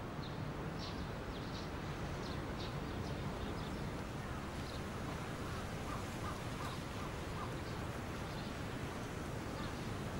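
Outdoor ambience: birds chirping and calling, short high chirps scattered throughout and a few repeated lower calls near the middle, over a steady low background rumble.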